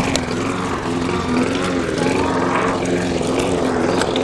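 Walk-behind gasoline lawn mower's small engine running steadily while mowing grass, its pitch wavering slightly.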